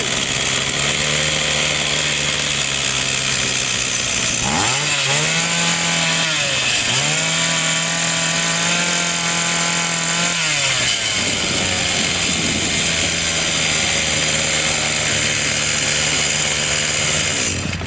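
Echo SRM-22GES string trimmer's small two-stroke engine running on a replacement Champion carburetor, warming up. It idles, is revved up about four seconds in, dips briefly, revs again, then drops back to a steady idle after about eleven seconds.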